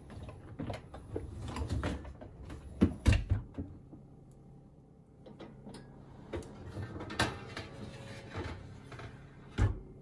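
Loaded wire racks of a Bosch dishwasher being slid in by hand: rack wheels rumbling on the rails, dishes, mugs and pans clinking, and several clunks as the racks knock home, the loudest about three seconds in and just before the end.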